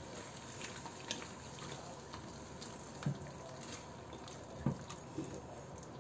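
Spatula stirring milk into a thick, wet korma sauce in a ceramic-coated wok: a faint wet sloshing, with a few light knocks of the spatula against the pan.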